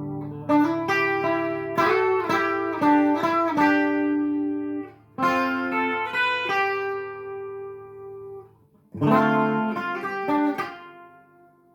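Modified Cort Zenox Z42 electric guitar, played clean through a chorus pedal into a Cort MX30R transistor amp. Picked notes and chords come in short phrases and ring out. There is a short gap about five seconds in, and a last phrase near the end fades away.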